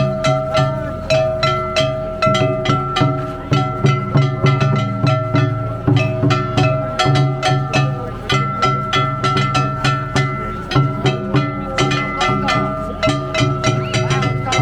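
Danjiri hayashi, the festival float's accompaniment music: quick, even plucked-string notes and drum strikes under a held high melody note.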